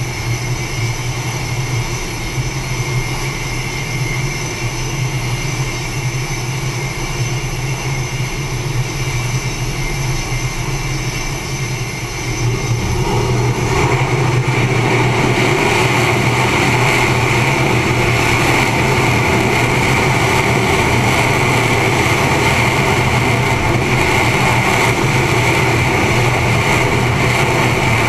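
Carrier jet aircraft engines running on the flight deck, a steady rumble with a high whine. About halfway through it grows louder and stays at that higher level.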